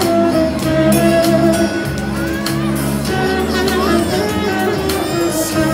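A live band playing a song, with a bass line stepping from note to note and a melody over it.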